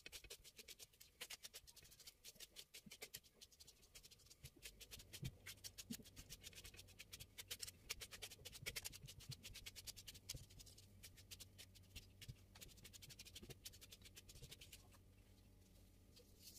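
Light, rapid clicking and scratching, several small taps a second, fading out near the end, over a faint low hum that starts about five seconds in.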